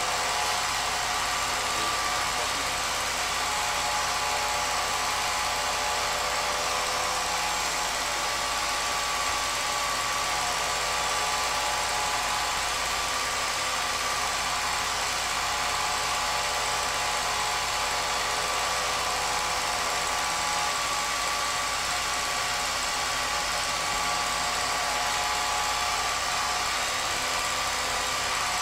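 Film projector running: a steady motor whir with a constant hum of tones over a hiss, unchanging throughout.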